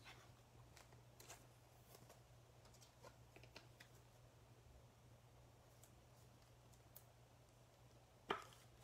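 Near silence over a low steady hum, with a few faint scattered clicks and one sharper click near the end.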